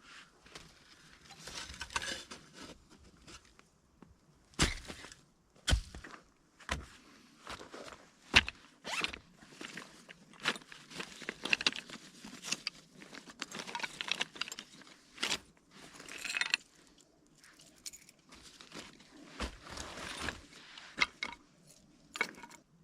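Irregular rustling, scraping and handling noises with several sharp knocks in between, from someone working with gear or wood by hand.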